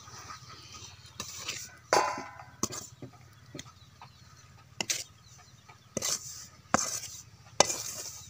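Perforated metal spoon scraping and knocking roasted ragi flour out of a kadai into a steel plate: a string of short metal scrapes and clinks.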